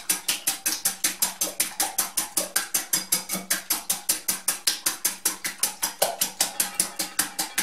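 Wire whisk beating eggs in a glass bowl, the wires clicking against the glass in a quick, even rhythm of about five or six strokes a second.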